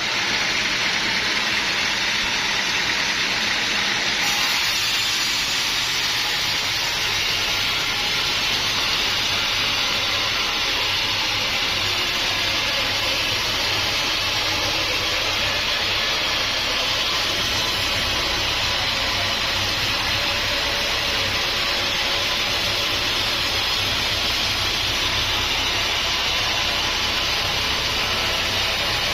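Sawmill machinery running steadily with a dense hiss-like noise, and a low engine hum that comes in about six seconds in.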